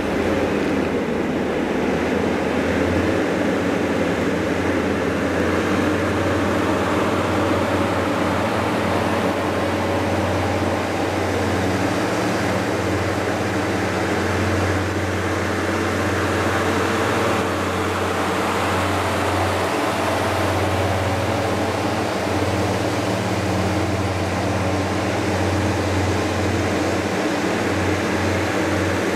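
Engines of heavy SMV transport tractor units running with a steady low drone as they drive slowly past in a convoy.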